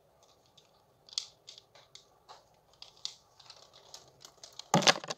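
Plastic marble-run parts being handled, giving scattered light clicks and clacks. Near the end comes one short, louder rustling burst.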